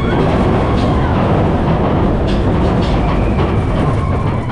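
Big Thunder Mountain Railroad mine-train roller coaster running along its track: a loud, steady rumble of the train on the rails, with a few faint clacks.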